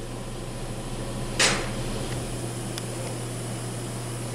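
Steady low electrical hum of a powered-up CNC milling machine, with one sharp knock about a second and a half in and a couple of faint ticks.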